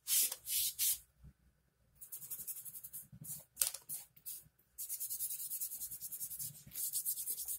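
A cloth rubbed briskly back and forth along the rusty steel barrel of an air rifle, quick strokes several a second, with a pause of about a second near the start: wiping off surface rust.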